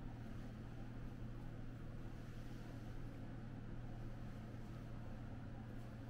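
Steady low hum with an even faint hiss, unchanging throughout: room tone.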